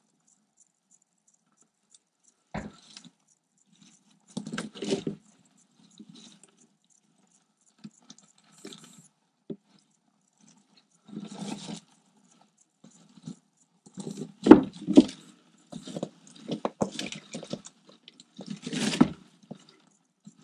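Bark-chip bedding rustling and scraping in irregular bursts, with a few sharp clicks, as a garter snake and the live California toad it is swallowing shift and drag through the substrate; the loudest bursts come about two-thirds of the way in and near the end.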